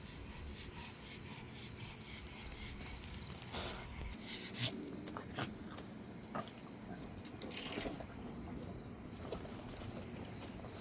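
Crickets chirping in a steady high drone, with faint scattered rustles and small clicks close by.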